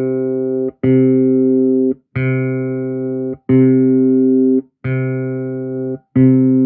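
Four-string electric bass guitar playing the C note at the 5th fret of the G string over and over, plucked about every second and a third. Each note is held about a second at a steady level and damped short before the next.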